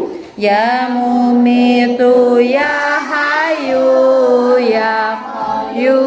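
A voice singing a chant-like prayer melody with ornamented, wavering pitch, breaking off briefly just after the start.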